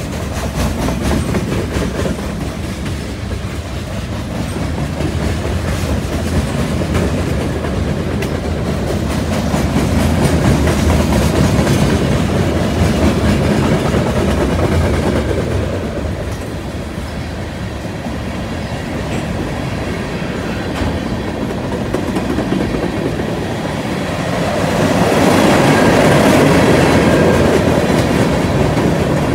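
Freight cars of a mixed freight train rolling past at track speed, their steel wheels rumbling and clicking on the rails in a steady clickety-clack. The sound swells louder near the end.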